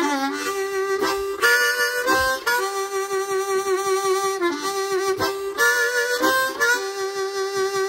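Blues harmonica riff: long held notes with a wavering vibrato, broken by a few short notes bent down in pitch, near the start, around the middle and at the end.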